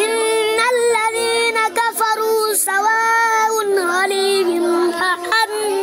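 A boy's high voice reciting the Quran in melodic tajweed chant: long held, gliding notes broken by short pauses for breath.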